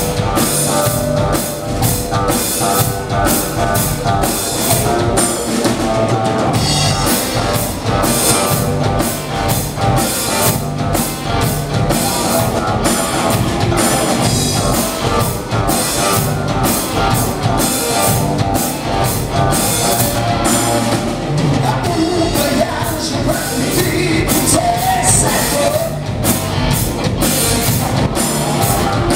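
Live rock band playing loudly: two electric guitars over a drum kit.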